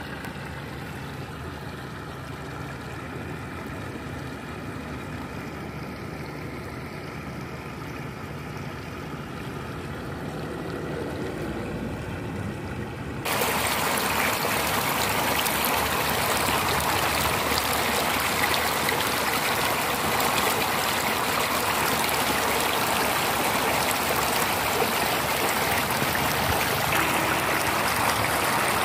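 Sand-and-water slurry from a sand-pumping line rushing down a tarpaulin-lined channel, with a faint steady hum underneath. About thirteen seconds in it jumps to a much louder, close rush of frothing water that holds steady.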